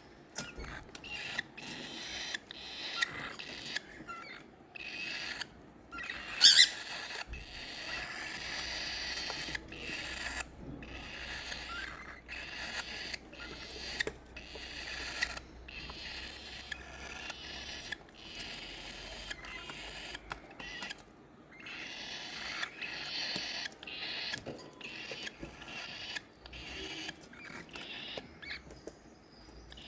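Baby cockatiel chicks making many short, high calls, with one much louder squeak about six seconds in.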